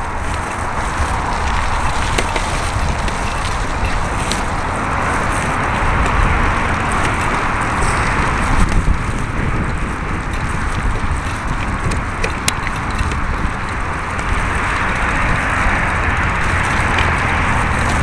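Wind rushing over the microphone of a bicycle-mounted camera and tyres rolling over a dirt path, with a few small clicks from bumps along the way.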